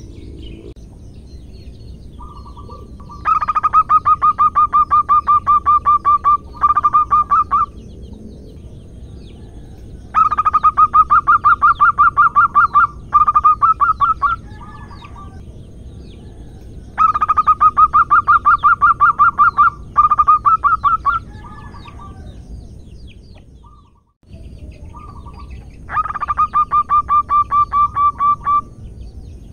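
Zebra dove (perkutut) cooing: four bouts of rapid, evenly repeated staccato notes, each bout lasting three to four seconds with a short break partway. The uploader bills the calls as a female calling a male.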